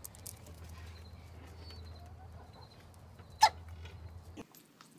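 Rooster with faint clucks over a steady low hum, and one short, sharp sound about three and a half seconds in, the loudest thing heard.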